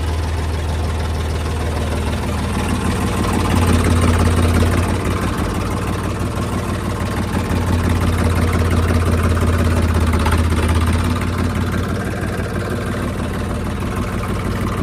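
Ford 3600 tractor's three-cylinder engine running steadily, its pitch and level rising briefly about three and a half seconds in and again for a few seconds from about halfway through.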